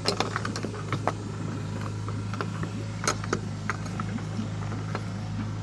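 Sailboat's auxiliary engine idling steadily, with scattered light clicks and knocks over it.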